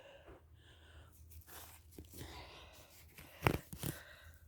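Faint rustling of a phone being handled against its microphone, with two sharp knocks close together about three and a half seconds in.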